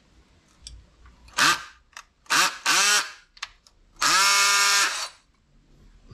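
Cordless drill run with no load in four short trigger pulls. Each pull spins the motor up quickly to a steady whine. The last pull, near the end, runs for about a second.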